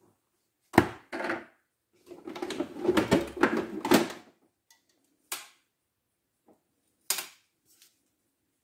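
Contents of a Makita hard plastic tool case being handled and unpacked: a sharp knock about a second in, then a couple of seconds of clattering and rustling, then two more single knocks.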